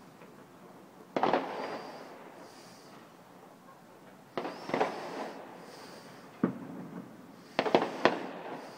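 Distant aerial firework shells bursting: sharp booms, one about a second in, a pair near the middle, another, then a quick cluster of three near the end, each fading out over about a second.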